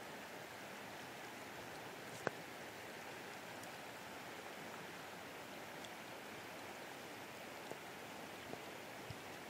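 Fast water running through a shallow river riffle: a steady rushing hiss, with one sharp click about two seconds in.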